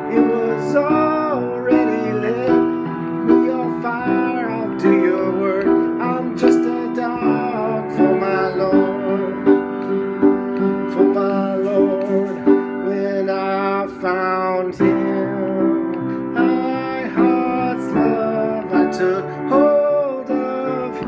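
Piano playing an instrumental break of a song: held chords with a higher melody line that wavers in pitch over them.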